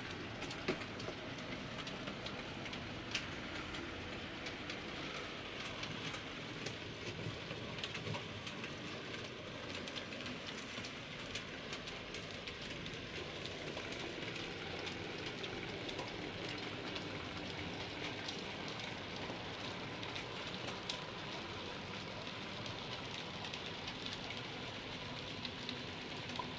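Model railway freight train running past: the wheels of kit-built pre-grouping goods wagons rattling along the track with a steady patter of small clicks over rail joints and pointwork.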